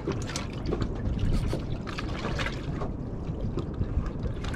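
Small boat on a choppy sea: water slapping and lapping against the hull in short irregular splashes over a steady low rumble.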